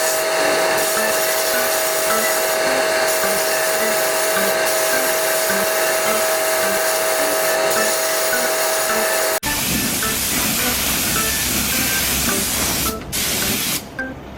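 Loud steady hiss of a compressed-air or gas workshop tool, with a steady whistling tone. About nine seconds in it cuts to a rougher hiss with more rumble, then drops away near the end. Light background music plays underneath.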